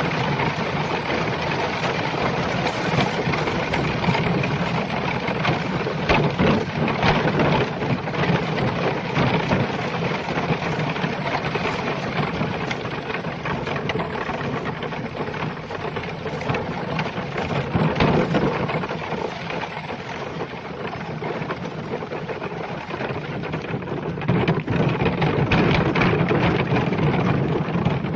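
Horse and cart on the move: a continuous rumbling clatter of the cart rolling, with many small knocks and clicks throughout.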